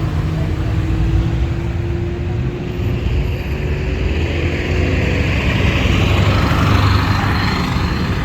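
Street traffic: car engines running and passing close by, a steady low rumble that swells a little near the end.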